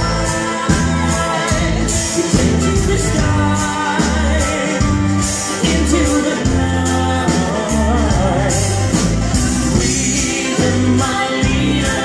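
Live country band playing, with a steady drum beat, bass, acoustic guitar and mandolin, and a voice singing the melody over them.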